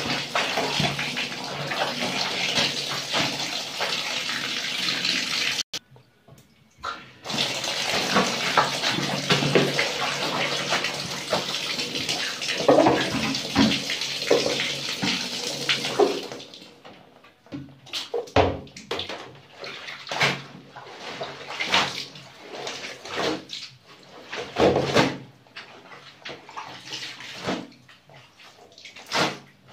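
A stream of water pours steadily into a plastic basin full of laundry as the clothes are trodden, with a short break about six seconds in. After about sixteen seconds the pouring stops, and the wet clothes slosh and splash now and then as they are handled and lifted into a plastic laundry basket.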